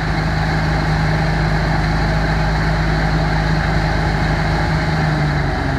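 Old Dominion Brush leaf vacuum truck's auxiliary pony motor and suction fan running steadily, with a low even hum that drops away near the end.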